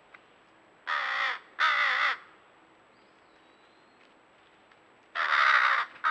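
Crow cawing: two harsh caws in quick succession about a second in, then a third, longer caw about five seconds in.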